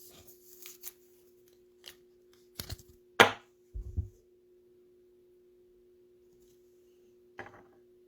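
Trading cards and plastic card holders being handled on a tabletop: light rustles and ticks, a sharp snap about three seconds in, then a couple of dull knocks, and one last tick near the end. A faint steady electrical hum sits underneath.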